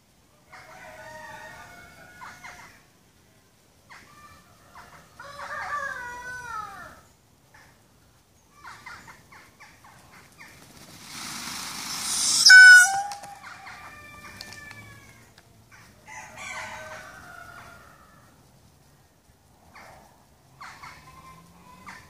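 Indian peafowl calling: a string of short honking calls spread through, with a harsh hissing rush that swells about eleven to twelve seconds in and ends in a quick rattling honk, the loudest sound.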